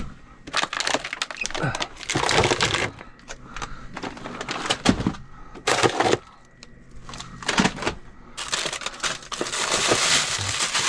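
Plastic bags crinkling and frozen food packages clattering as they are pulled out of a refrigerator and packed into a large bag. Irregular rustles and knocks, with a sharp clack about five seconds in and a steady crinkling near the end.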